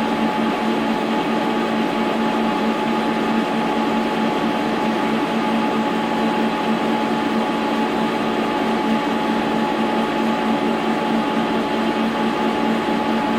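Brown & Sharpe horizontal milling machine running steadily: a constant low hum with a steady higher whine over it.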